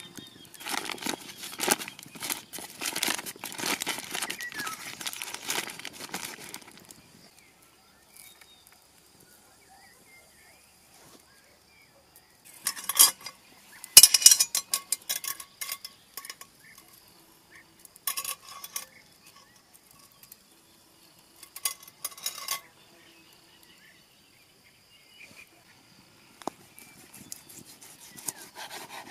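Paper crinkling and rustling for about seven seconds as food is unwrapped. After a lull come several short bursts of metal clinking and rattling from a cooking pot hanging on a chain as it is handled.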